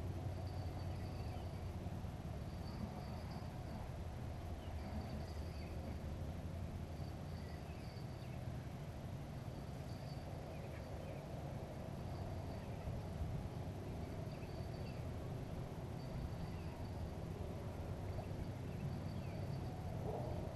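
Outdoor ambience: a steady low rumble under short bursts of thin, high chirping that come back every second and a half to two seconds, with fainter scattered chirps between them.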